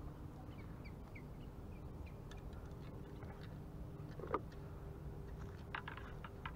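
Frogs croaking from the reeds at the river's edge: one loud call about four seconds in and a cluster of short raspy calls near the end. Small birds chirp in the first second or two, over a steady low hum.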